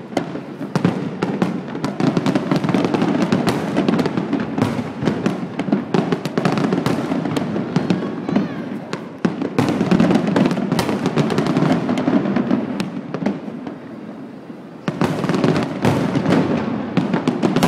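Fireworks display: aerial shells bursting in a dense, near-continuous run of bangs and crackles. It eases off briefly about three-quarters of the way through, then picks up again.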